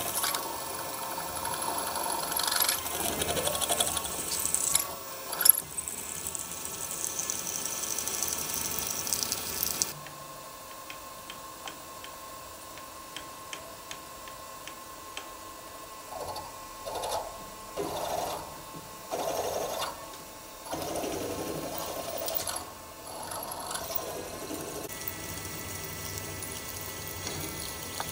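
Bench drill-milling machine running, louder and hissier for the first ten seconds, then settling to a quieter steady whine with several short louder bursts.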